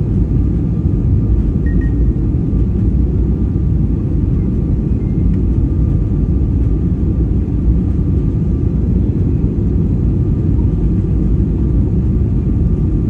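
Steady low rumble of an airliner heard from inside the cabin: engine and airflow noise, with a faint steady whine above it.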